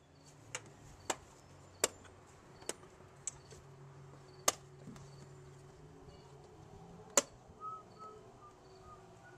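Sharp plastic clicks and knocks, about seven at irregular intervals, as a Volvo 850-series airbox is unclipped and worked loose by hand, over a faint steady low hum.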